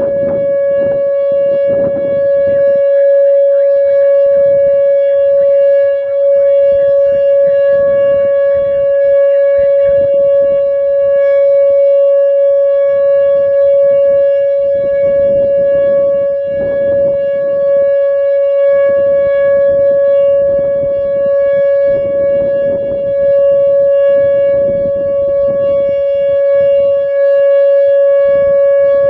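Whelen WPS-2908 electronic outdoor warning siren sounding its steady alert tone in a full-length test: one unwavering loud pitch with a stack of overtones, no rise or fall. Irregular low rumbles come and go beneath it.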